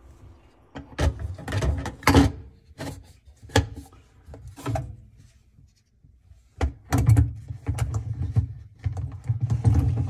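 Plastic clicks, knocks and clatter as a GE dishwasher's lower spray arm and filter canister are handled and fitted back into the tub, with a short lull a little past halfway.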